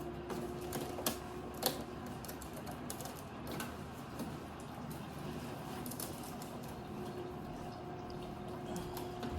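Scattered light clicks and taps of hands handling a sewing machine and its packing pieces, most of them in the first few seconds, over a faint steady hum.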